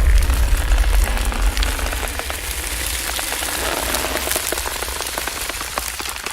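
Horror sound effect: a dense, rain-like patter of crackles over a deep rumble. It is loudest at the start and slowly dies away.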